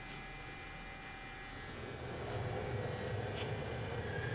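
Clausing Colchester Mastiff VS variable-speed gap bed engine lathe starting up about two seconds in: a low drone with a steady tone that grows louder as it comes up to speed in its low range.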